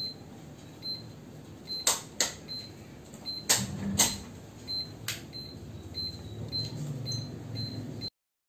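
UVC ozone sterilizer lamp beeping steadily during its start-delay countdown, a short high beep about every two-thirds of a second. A few sharp clicks and knocks sound over the beeping in the middle. The sound cuts off suddenly near the end.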